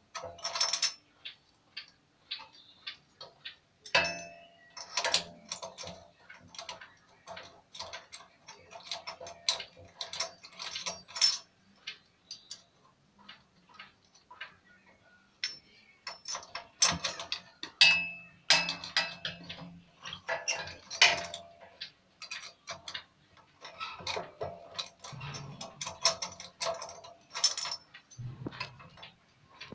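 Irregular metallic clicks and clinks from a spark plug box spanner, turned by a screwdriver through its handle hole, as a generator's spark plug is unscrewed anticlockwise. A few louder clanks ring briefly, about four and eighteen seconds in.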